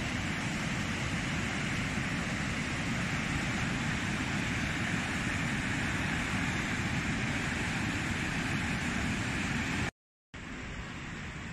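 A swollen river in flood, fast brown water rushing through its channel with a steady, even rush. It cuts off abruptly about ten seconds in and comes back as a quieter steady rush.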